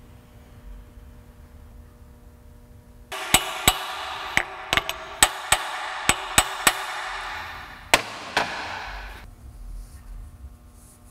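About a dozen hammer blows on a seal driver, driving a new axle seal into the bore of a Ford 8.8 axle tube. Each strike is sharp, with metallic ringing that carries between blows and dies away shortly after the last one.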